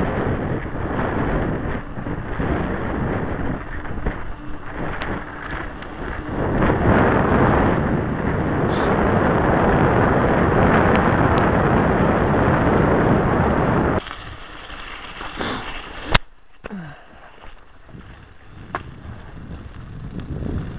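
Wind buffeting the camera microphone of a moving bicycle, a loud rumbling rush that cuts off abruptly about two-thirds of the way through. After that only quieter rolling noise is left, with a few clicks and one sharp knock.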